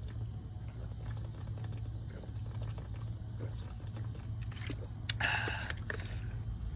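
Quiet outdoor background with a steady low hum, a faint high, rapid trill about one to three seconds in, and a brief rustle about five seconds in.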